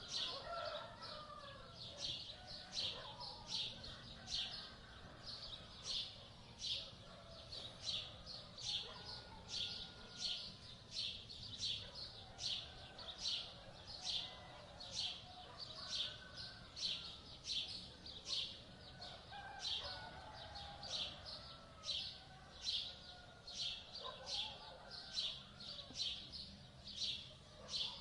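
Birds calling: a short, high chirp repeated at an even pace, about three every two seconds, over softer, lower, wavering bird calls.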